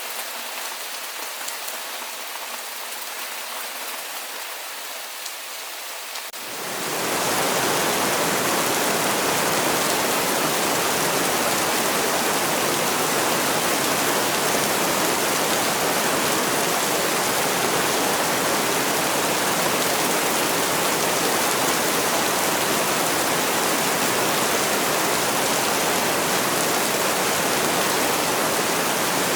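Rain falling in a steady patter; about six seconds in it changes abruptly to a louder, denser, fuller rush of heavy rain that holds steady.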